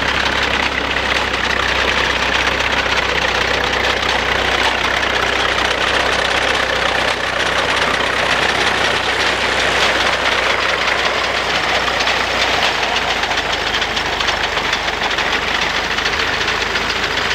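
1939 Fordson N tractor's four-cylinder side-valve engine running steadily under load while pulling a working binder, with the binder's mechanism clattering along with it.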